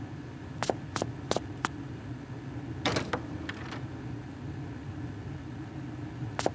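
Sharp clicks, four in quick succession, then a short clicking rattle about three seconds in as a small glass-fronted cabinet door is opened, with one more click near the end, over a steady low hum.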